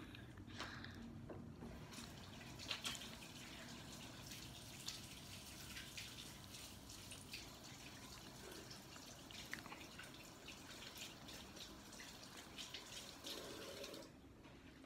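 Faint steady hiss of running water with many small scattered clicks and ticks.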